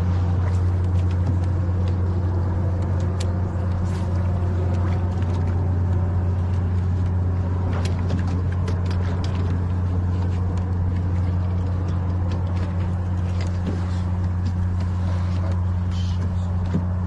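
Boat motor running with a steady low hum that does not change throughout.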